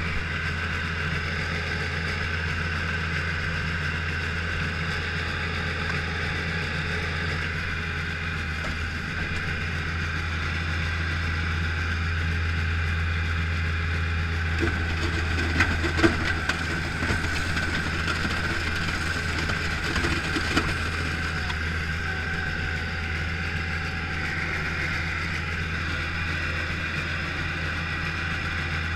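Bobcat skid-steer loader's diesel engine running steadily, heard from inside the cab, with a few sharp knocks and clunks about halfway through.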